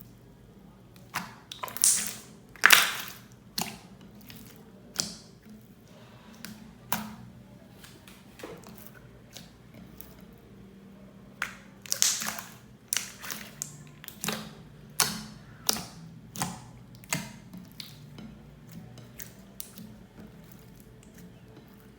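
Slime being handled: irregular sharp clicks and pops, a couple of louder ones near the start and about halfway through.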